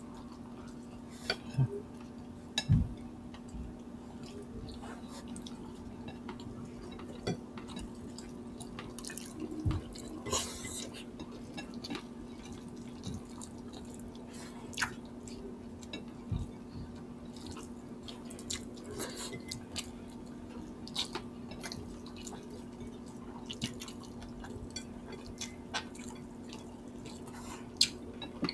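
Two people eating chicken in sour broth with their hands: wet chewing, lip smacks and finger-sucking, heard as scattered short clicks over a steady low hum.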